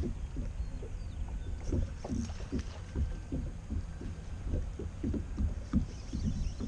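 Water lapping and slapping against the hull of a plastic kayak in short, irregular splashes, a few a second, over a low wind rumble on the microphone.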